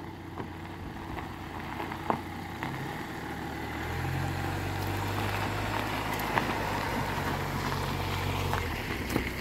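A car engine running with a steady low hum, which grows louder about four seconds in.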